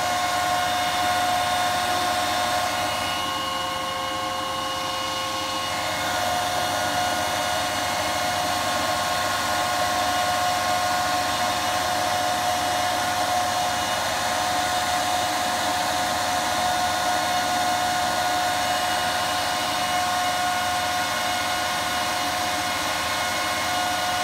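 Antminer S9 Bitcoin miner's cooling fans running at speed: a steady rush of air with several steady whining tones from the fan blades.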